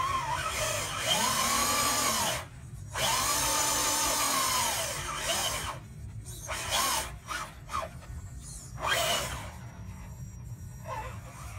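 Brushed electric motor and geared drivetrain of an Axial SCX10 RC crawler whining in throttle bursts as the truck climbs over a log, the pitch rising and falling with each push. Two long pulls of about two seconds each, then several short blips.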